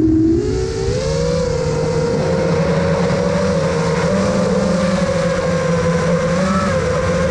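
Six-inch FPV quadcopter's brushless motors (3Bhobby 2306 2700KV) and propellers whining in flight: the pitch starts low, rises within the first second as the throttle comes up, then holds steady with small wavers.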